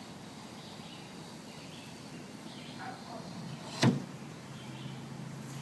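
A single sharp knock about four seconds in, over a low steady background.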